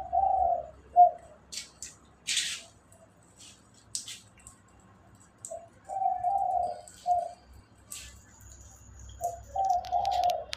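A dove cooing: a low three-note phrase, a short coo, a longer drawn coo and a short coo, sung three times with pauses of a few seconds between. A few brief scratchy noises fall between the phrases.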